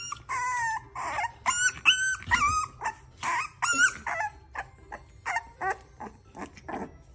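Young French bulldog puppies whining and yelping: a quick run of short, high cries that bend up and down in pitch, about three a second.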